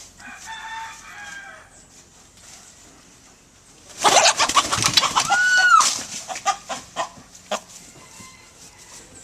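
Rooster calling near the start, then a loud flurry of squawking about four seconds in, lasting about two seconds and ending in a held, arching cry, as the bird is chased for capture.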